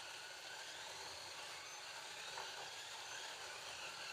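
Digital Scalextric slot cars running on a plastic track: a steady hiss of small electric motors, whose faint whines rise and fall as the cars speed up and slow down through the lap.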